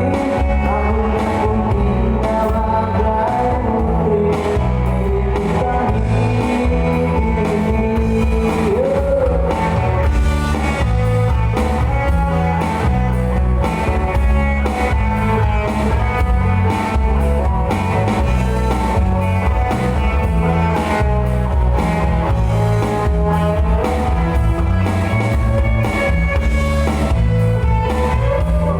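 Live band playing a pop-rock song: electric guitar, bass and drums, with a melodic lead line over a steady beat.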